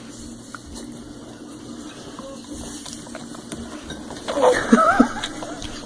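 A baby's loud squealing cry, bending up and down in pitch, starts about four seconds in over a steady low background hiss.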